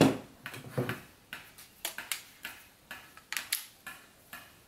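An irregular series of sharp metallic clicks and taps as an air hose's quick-connect coupler is swapped from one pneumatic tool to another, a pneumatic nailer, with the loudest click at the very start.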